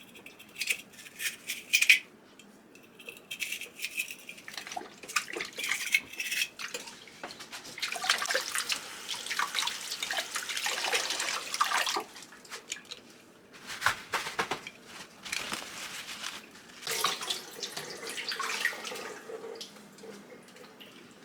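Small cleaning brush scrubbing inside a wet plastic humidifier part, with water splashing and dripping. It comes as scattered scratches and clicks, with longer stretches of steady scrubbing or running water about a third of the way in and again near the end.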